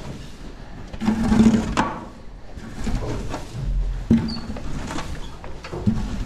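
Knocks and scrapes of feeding work in a cattle barn, with short low animal calls about a second in, about four seconds in and near the end.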